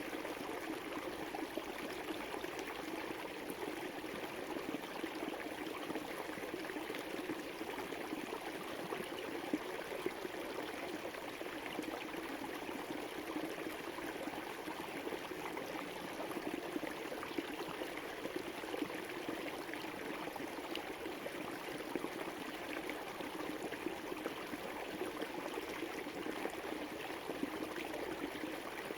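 A river flowing: a steady, even rush of running water that does not change.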